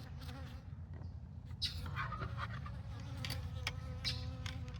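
Honeybees buzzing close by, one flying near with a steady drone: defensive bees stirred up by the alarm being sounded at the opened hive. A few sharp clicks sound over the buzzing.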